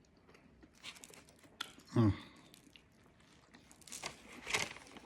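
A person biting into and chewing a chicken bacon ranch sub sandwich, with small crunches and crackles and a short falling 'mm' hum about two seconds in.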